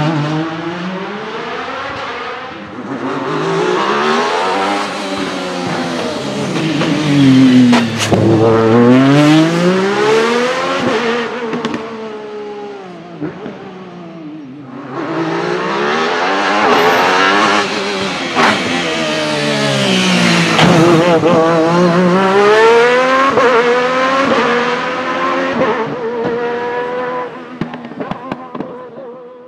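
Race car engine revving hard, its pitch climbing and dropping again and again as it runs up through the gears and comes off the throttle. The sound eases off briefly about halfway, then a second hard run follows, and it fades out near the end.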